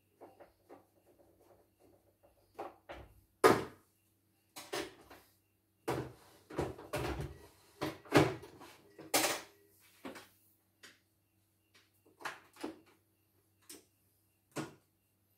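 Irregular knocks and clunks of a white plastic YOKO portable embroidery machine and its embroidery unit being handled and set down on a bench, loudest about three and a half seconds in and again around nine seconds in.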